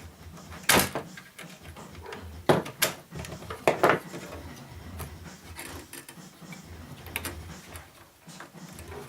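Sharp clicks and knocks of parts being handled while an electronic effects unit is taken apart on a workbench: one a little under a second in, a pair around two and a half to three seconds, another pair near four seconds, then fainter ticks, over a low steady hum.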